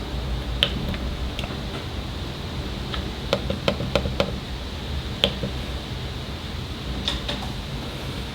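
Small sharp clicks of camera buttons and control dial being pressed while stepping through menus and photos, single clicks here and there and a quick run of about five roughly three to four seconds in, over a steady low hum.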